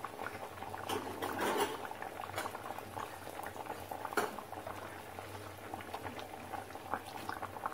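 Thick dried-fish curry boiling in an open aluminium pot, with a steady bubbling and many small pops. A few louder pops come about a second in and again around the middle.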